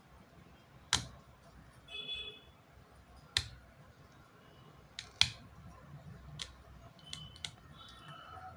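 Small metal tool clicking and scraping against the LED chips on an LED bulb's aluminium board as a part is pried off. There are about seven sharp, irregular clicks, with short scratchy scrapes about two seconds in and near the end.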